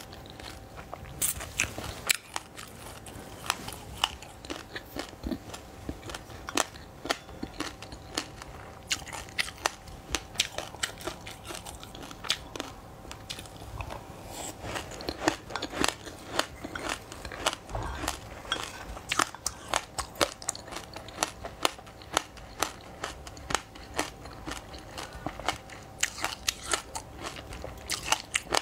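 Chewing a crunchy mouthful of sesame seeds, buckwheat and frozen passion fruit: dense, rapid crunching and crackling, over and over.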